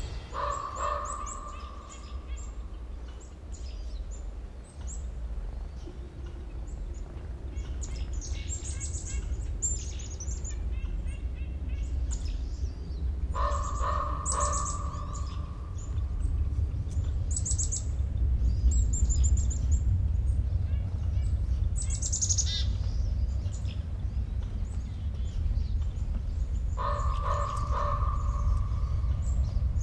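Songbirds chirping and trilling on and off over a low steady rumble. A short mid-pitched tone that fades away sounds three times, at the start, about halfway through and near the end.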